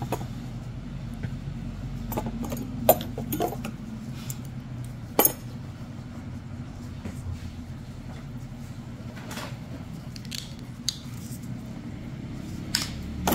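Scattered sharp clicks and clinks of small metal nail-care instruments being handled against the toenail, over a low steady hum; the loudest clicks come about three and five seconds in and again near the end.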